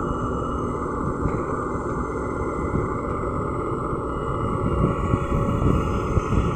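LiuGong crawler excavator's diesel engine running under hydraulic load as the arm reaches out and the bucket digs into the soil, a steady rumble that grows louder and rougher near the end.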